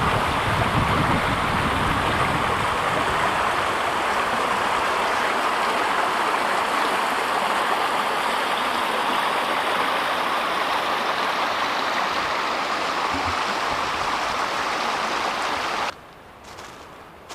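Steady rush of flowing water, cutting off abruptly about a second before the end.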